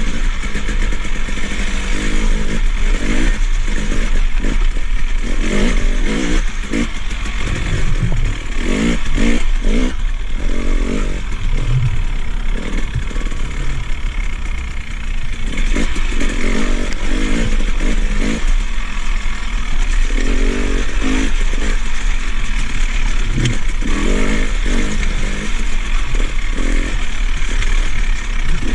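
KTM 300 XC-W TPI fuel-injected two-stroke dirt bike engine revving up and down as it is ridden over a rocky, rutted trail, the engine new and being broken in.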